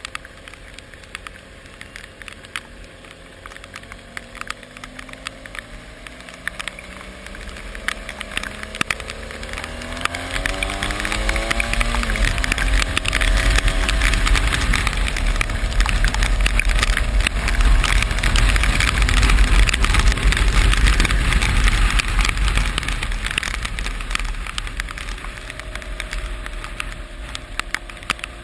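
A vehicle's engine climbing in pitch as it accelerates, with rain crackling on the microphone. A loud rushing wash with a deep rumble builds about ten seconds in, peaks past the middle and fades toward the end.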